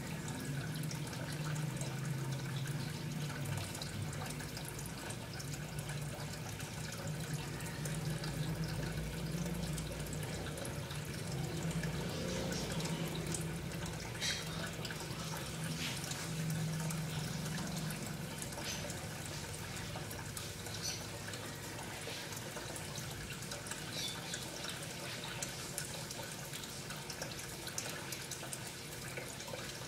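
Steady running, trickling water with scattered drips, over a low hum that fades out a little past the middle.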